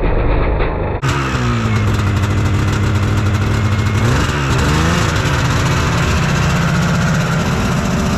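Two-stroke twin engine of a 1997 Yamaha Phaser II snowmobile running on its stand. It is blipped up and back down about four seconds in, then holds a faster, steady idle.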